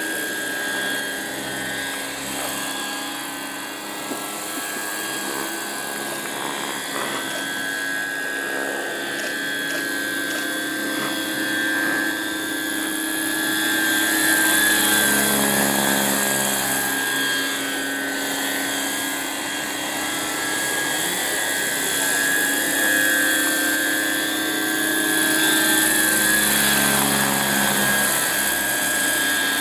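Electric motor and tandem rotors of a large scale model Piasecki H-21 RC helicopter in flight: a steady high-pitched whine over rotor blade noise. It grows louder and drops in pitch as it flies past, about halfway through and again near the end.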